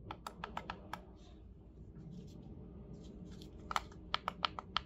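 Plastic push buttons on a kids' alarm clock clicking as they are pressed in quick repeated taps, a run of about half a dozen in the first second and another run near the end, while the volume buttons step the hours and minutes during time setting.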